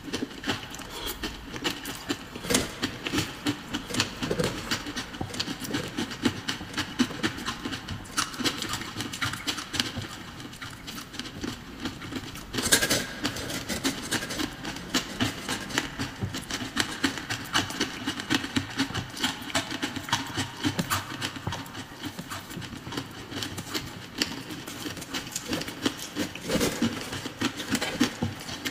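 Close-up crunching and chewing of mouthfuls of crushed coloured ice: a dense, continuous crackle of ice breaking between the teeth, with one louder crack about halfway through.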